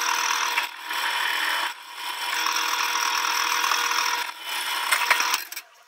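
Drill press boring out the hole in a stainless steel exhaust mounting tab to enlarge it, the bit cutting with a steady high grinding rasp. It eases off briefly about a second in and again around two seconds, then stops near the end.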